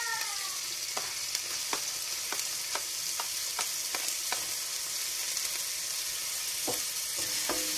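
Chopped garlic and ginger frying in hot coconut oil in an aluminium pan: a steady sizzling hiss with frequent small pops, about two or three a second, through the first half and again near the end.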